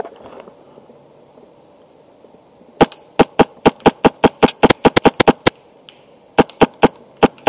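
Wolverine Inferno Gen 2 HPA-powered airsoft rifle firing a quick string of about fifteen sharp shots, roughly six a second, then after a short pause about six more near the end.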